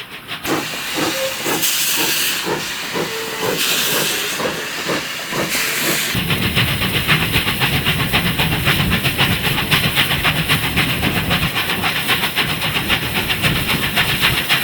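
Steam locomotive working, its exhaust beating in a steady rhythm, with three loud bursts of hissing steam in the first six seconds. From about six seconds in the beat turns quicker and heavier.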